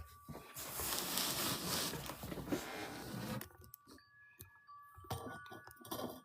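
Rustling and handling noise for about three seconds, then scattered light clicks and taps.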